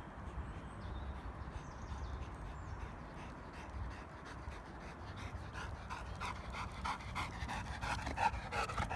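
Labrador retriever panting hard from running, rapid breaths that grow louder over the last few seconds.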